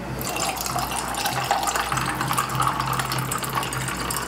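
Red Bull poured from a can into a mason jar over ice, a steady splashing stream with fizzing from the carbonated drink.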